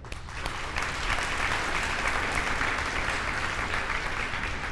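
Audience applauding in a large hall, the clapping building over the first second and tapering off near the end.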